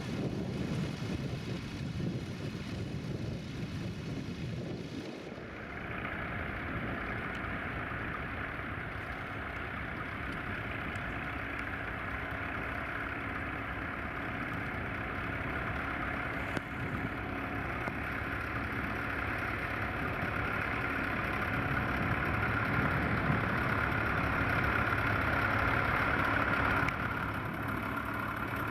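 Vintage tractor engine running steadily while ploughing. The sound changes abruptly about five seconds in, then grows slowly louder before dropping back near the end.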